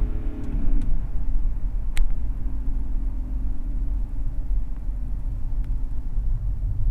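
BMW E39 2.5-litre diesel engine running with a low rumble, its mass airflow sensor unplugged, on a car with poor turbo boost pressure. Its pitch drops in the first second as the revs fall, then holds steady. There is a single sharp click about two seconds in.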